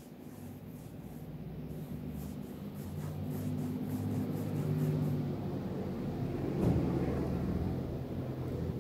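A motor vehicle's engine running with a low, steady hum that grows louder over several seconds and eases off near the end, as of a vehicle passing. A single click sounds about two-thirds of the way in.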